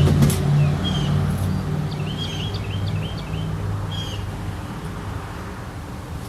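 Birds chirping in short calls over a low rumble that slowly fades away over the first few seconds.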